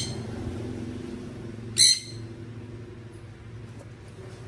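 Two short, high chirps from a bird, about two seconds apart, the second one loud, over a steady low hum.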